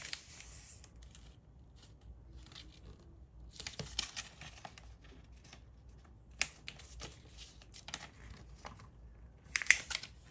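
Origami paper rustling and crinkling as it is folded and creased by hand, in short scattered bursts with the loudest near the end.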